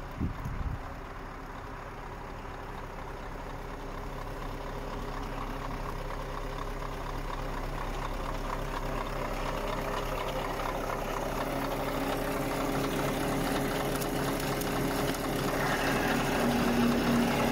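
Scania R520's 16-litre V8 diesel engine idling steadily. It grows louder as the microphone moves in close to the open engine bay.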